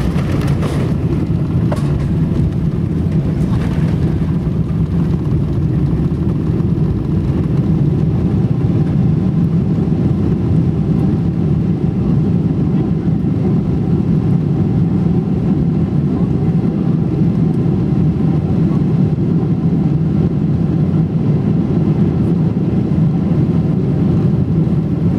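Loud, steady rumble inside the cabin of a Boeing 777 landing, heard from a seat over the wing: engine, airflow and wheels rolling on the runway, with two brief louder rushes in the first few seconds.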